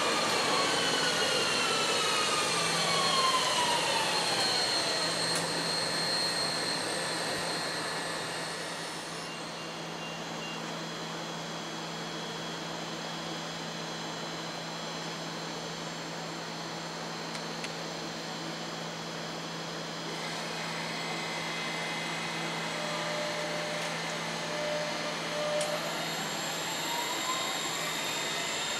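A red DB Regio electric multiple unit runs past with its traction motors whining in several tones that fall in pitch and fade by about nine seconds in. Under a steady low hum, a second DB Regio electric multiple unit pulls away from about twenty seconds in, its motor whine rising in pitch as it speeds up.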